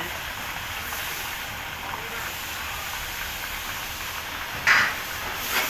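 Chicken thighs deep-frying in a wok of hot oil: a steady sizzling hiss of bubbling oil. One short, sharp clack near the end is the loudest sound.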